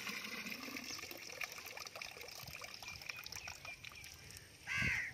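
Water from a hand pump's spout splashing into a trough, with a few sharp knocks, trailing off toward the end as the flow dies away. Near the end comes a brief pitched call or voice sound.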